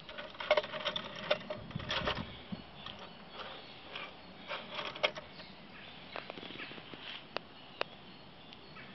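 Wind-up automaton sculpture of driftwood and recycled metal running on its clockwork: irregular clicks, taps and light rattles of its moving metal parts. They come thick for the first five seconds or so, then thin to a few single clicks as the mechanism runs down.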